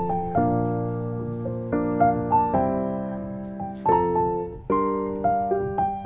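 Background keyboard music: chords struck about once a second, each left to fade, with single higher notes between them.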